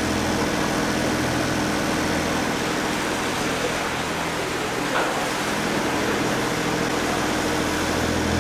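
A sailing yacht's inboard engine running steadily at low revs while motoring, a constant low hum.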